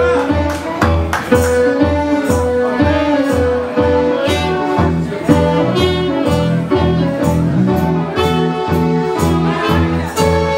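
Live dance band playing an instrumental passage: sustained melody notes over bass and drums keeping a steady beat of about two a second.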